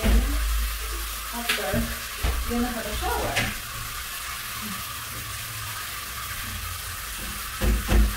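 Handheld shower head spraying water onto a glass shower screen: a steady hiss of running water, with a few low thuds at the start, around two seconds in, and near the end.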